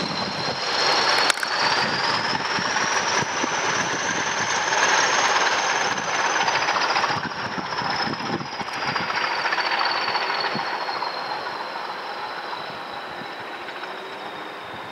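Two Class 20 diesel locomotives working hard under power: their English Electric engines thrash with a heavy rumble under two high turbocharger whistles. The whistles rise in pitch over the first few seconds, then slowly fall as the locomotives draw away and the sound fades.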